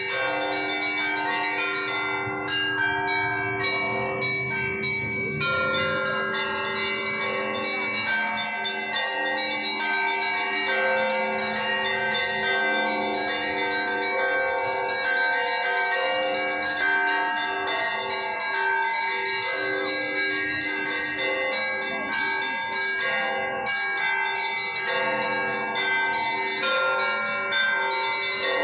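Russian Orthodox church bells being rung in a peal (zvon): several bells struck again and again, their ringing overlapping into a continuous dense chime over the held hum of the larger bells.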